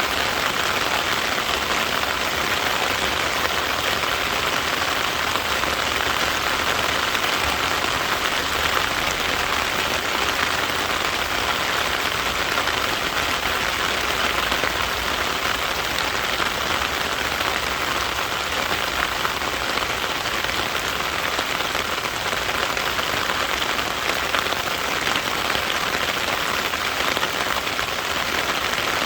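Steady rain falling and pattering on surfaces, an even hiss that neither builds nor eases.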